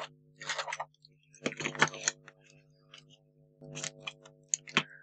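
A wide roll of double-sided foam spacer tape is pulled off and pressed onto paper card in three crackly, rustling bursts. Near the end come two sharp snips as small scissors cut the tape.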